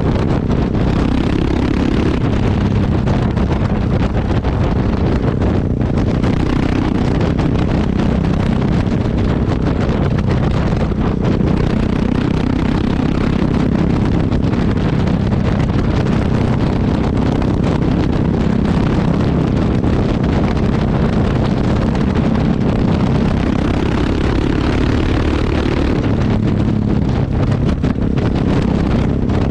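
Yamaha XT660X's single-cylinder four-stroke exhaust running steadily while the bike is ridden, picked up close to the exhaust, with wind buffeting the microphone. The engine note rises and falls a little with the throttle.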